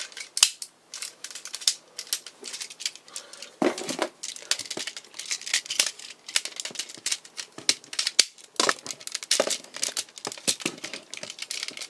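Hard plastic toy train cars of a DX combining robot being handled and fitted together: irregular clicks and clacks, with a few sharper snaps about four seconds in and again around nine seconds.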